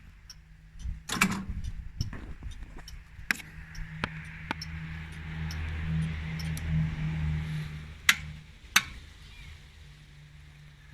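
VW 1.9 diesel engine of a homemade tractor running steadily, growing louder for a few seconds in the middle. A sharp knock comes about a second in, and two more come close together near the end.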